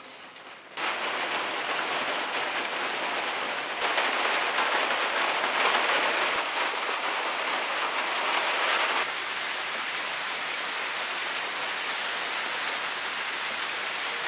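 Rain falling steadily, starting about a second in and heavier for several seconds in the middle.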